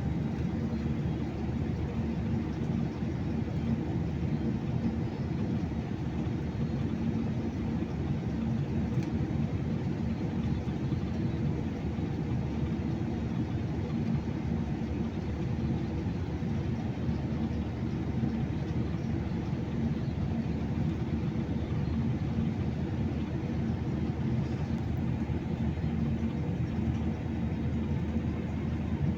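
Airplane cabin noise heard from inside the cabin: a steady low rumble of engines and rushing air, with a faint steady hum, unchanging throughout.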